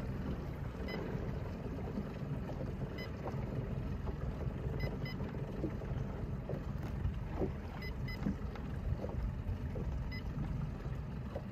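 Steady low rumble of wind and water around a bass boat moving slowly at about two miles an hour, with faint short high beeps every two or three seconds.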